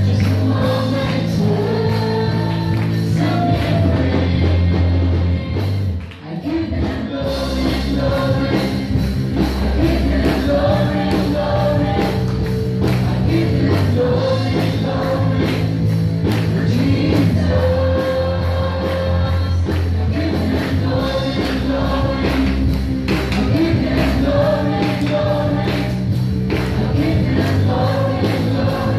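Youth choir singing a gospel praise song into microphones over band accompaniment with a steady beat and bass. The music drops away briefly about six seconds in, then comes back in full.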